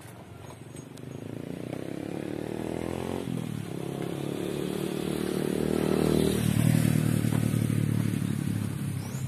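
Motorcycle engine running and picking up speed, its pitch dropping about three seconds in, loudest around seven seconds in before easing off.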